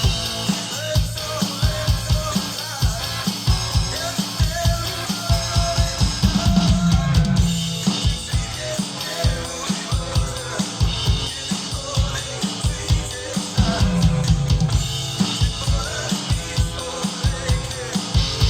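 Instrumental rock music led by a drum kit: a steady, busy kick drum and snare beat under sustained bass and guitar, with cymbals throughout.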